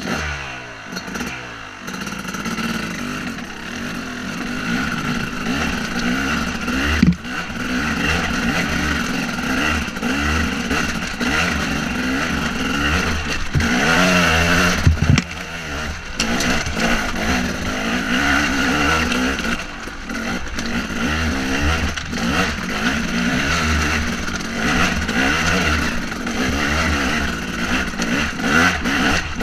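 KTM 250 SX two-stroke dirt bike engine revving up and down under load on a rocky trail, picking up speed over the first couple of seconds. A couple of sharp knocks come from the bike hitting rocks.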